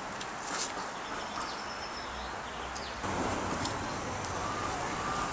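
Steady outdoor background noise with a few faint bird chirps; the background gets a little louder and fuller about three seconds in.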